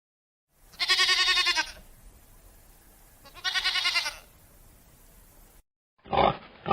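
A goat bleating twice, each call just under a second long with a quavering, wavering pitch.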